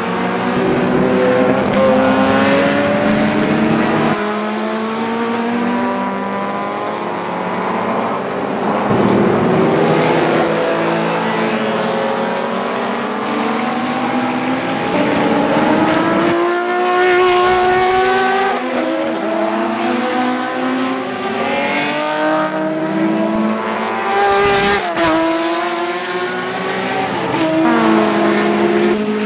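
Classic touring race cars passing at speed, several in turn, their engines climbing in pitch under acceleration and dropping back at gear shifts.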